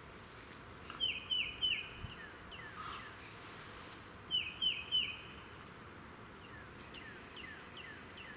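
A songbird singing phrases of three quick downward-slurred whistled notes, twice, about a second in and again past four seconds. Fainter, lower descending chirps from other birds sound against a quiet outdoor background.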